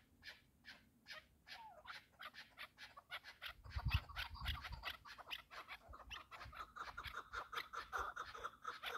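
Partridge calling, a run of short repeated clucking notes that grow faster and louder about three and a half seconds in. A low rumble comes about four seconds in.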